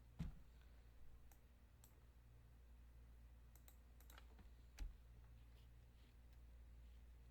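Near silence over a steady low hum, broken by a few scattered faint clicks. The two sharpest come about a quarter second in and just before five seconds.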